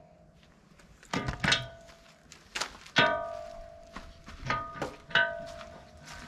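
Sharp metal clanks on the steel rotor of a mulching head while a cutter tooth is being removed, about seven knocks in loose pairs. Each knock leaves the rotor ringing like a bell for a moment.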